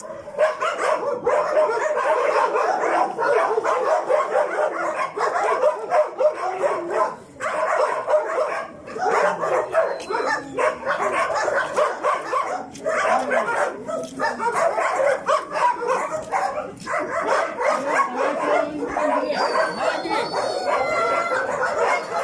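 Many shelter dogs barking, yipping and howling together in a dense, continuous chorus, with a couple of brief lulls about a third of the way in.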